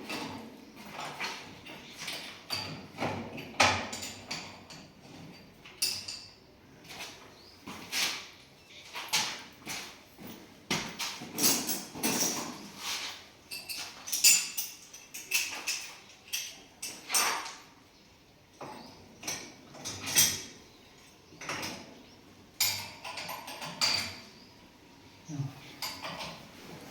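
Irregular metal clinks and knocks of hand tools and parts worked on an 80 mm valve during repair.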